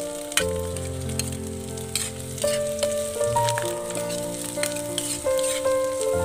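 Food sizzling and crackling as it cooks, over background music of held notes.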